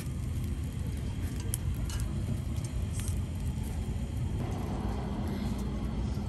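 Wood fire burning in a portable fire grill, giving a few sharp pops and crackles over a steady low outdoor rumble.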